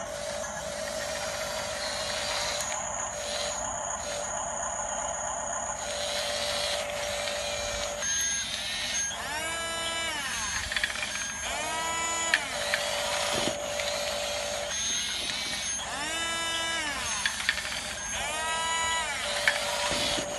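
Whine of a radio-controlled model's small electric motor and gearbox running steadily. About every two to three seconds the pitch rises and falls again as the motor speeds up and slows, with a few sharp clicks.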